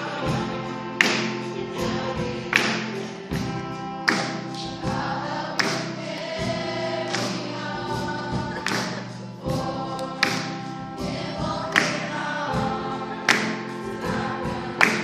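Young voices singing together as a choir, with a sharp beat accent about every second and a half.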